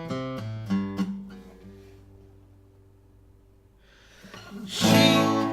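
Acoustic guitar played by hand: a quick run of single picked notes, the last ones left to ring and fade almost to quiet, then a loud strummed chord near the end.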